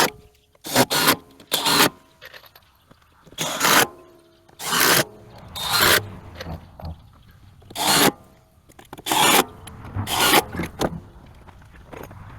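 A series of about ten short, sharp scraping strokes at irregular intervals, some followed by a faint ringing.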